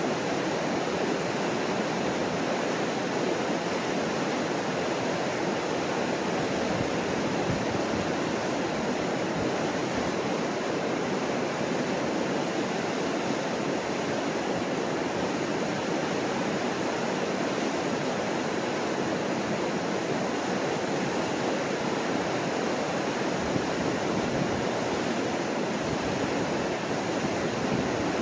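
Steady rushing roar of whitewater as the Mississippi River pours over the rock falls of the Chain of Rocks rapids.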